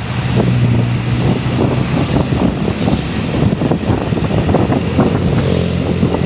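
Bus engines running with a low steady hum that swells in the first couple of seconds and again near the end, under heavy wind buffeting on the microphone.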